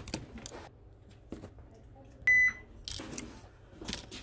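Small clicks and scrapes of a plastic pry tool and a metal spudger prying at a smartphone's flex-cable connectors and charging-port board. One short, loud, high-pitched electronic beep sounds a little over two seconds in.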